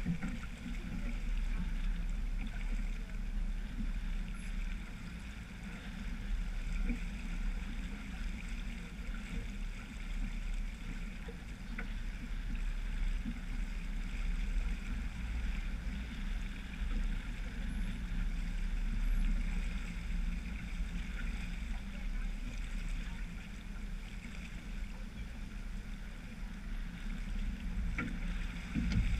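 Water rushing steadily along the hull of a sailboat under sail, with wind blowing on the microphone.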